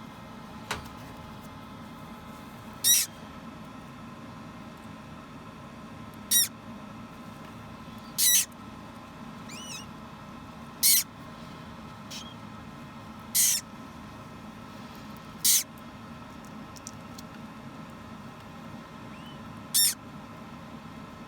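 Hatching parrot chick giving short, high-pitched peeps, seven of them a few seconds apart, over a steady low hum.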